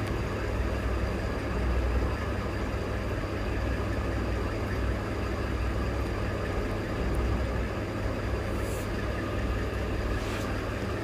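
Steady low mechanical hum, with a couple of faint light ticks near the end.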